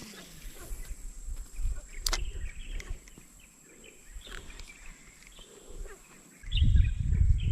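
Outdoor ambience by a reservoir: scattered faint bird chirps over a steady high-pitched whine, with a single sharp click about two seconds in. Near the end, wind begins rumbling on the microphone.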